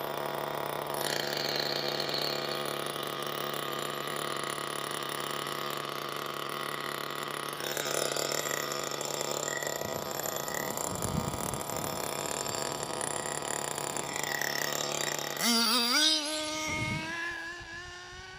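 Hyper 7 nitro engine in an RC buggy running steadily at idle, then revving up with a wavering rising pitch about three-quarters of the way through before the sound fades near the end.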